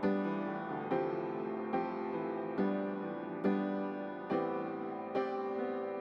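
Slow, gentle background music led by piano-like keyboard, a new chord struck about once a second and left to fade.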